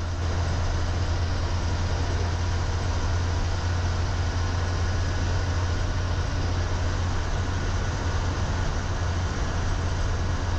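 Steady drone of a bus's engine and road noise heard from inside the bus while it cruises along a highway: a constant low hum under an even rushing noise.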